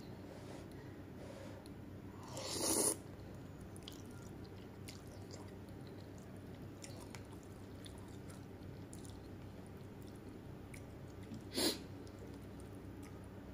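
Person eating instant noodle soup: quiet chewing and faint small clicks, with two loud slurps of noodles, one about two and a half seconds in and a shorter one near the end.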